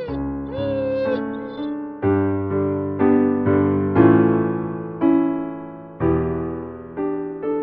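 Gentle piano background music, its notes struck about twice a second. In the first second or so a drawn-out gliding call, most likely a cat's meow, sounds over it.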